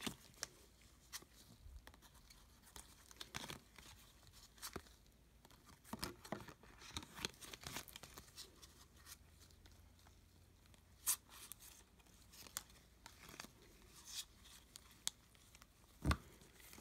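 Football trading cards being handled and flipped through by gloved hands: faint scattered rustles and card-on-card clicks, with a sharper click about eleven seconds in.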